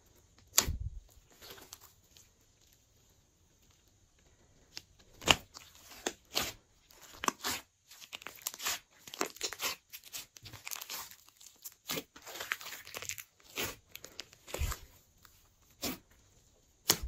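Hands squeezing and pressing a large mass of glossy slime, giving irregular wet clicks and pops as trapped air pockets burst, with a quiet pause about two to five seconds in.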